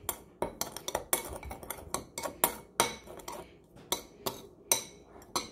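A spoon clinking and scraping against a bowl while stirring minced garlic, ginger and brown sugar together, in quick irregular taps several times a second.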